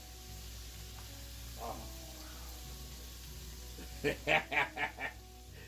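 Beef ribs deep-frying in a pot of vegetable oil, a steady sizzle. About four seconds in, a quick run of louder voice-like sounds rises over it.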